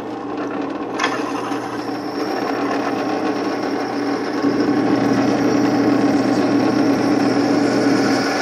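Drill press running steadily as its bit cuts through stacked quarter-inch steel plates, with a single click about a second in.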